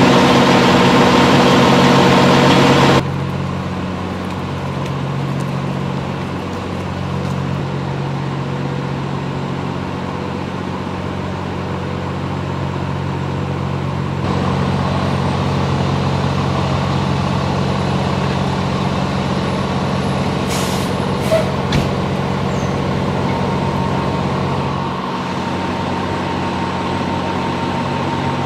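Heavy truck engines of fire apparatus idling, a steady low hum, with a couple of brief knocks about three-quarters of the way through.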